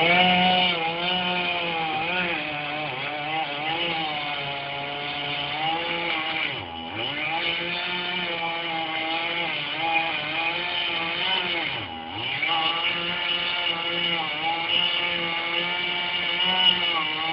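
Toyota Land Cruiser Prado's engine revving hard and held under load as it strains to pull down a dead tree. The revs waver throughout and twice sag briefly before picking up again.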